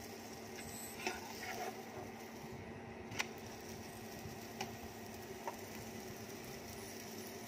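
Steady low hum of an induction cooktop heating a paratha on a nonstick tawa, with a few short, sharp clicks now and then.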